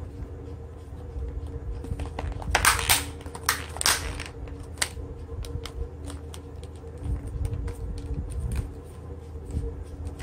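Hands handling the black plastic casing of an Ambrane P1511 power bank: scattered clicks and rubbing, with two louder rustling scrapes about two and a half and four seconds in, over a steady low hum.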